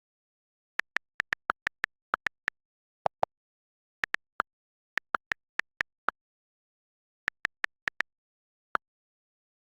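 A series of about two dozen sharp clicks in irregular quick runs, with dead silence between them.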